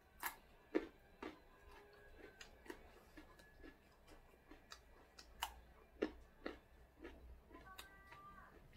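Crunching of a raw carrot stick being bitten and chewed close to the microphone: sharp crunches at an irregular pace of one or two a second.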